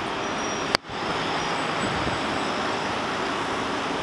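Steady downtown street traffic noise. About three-quarters of a second in, a single sharp click is followed by a momentary gap in the sound.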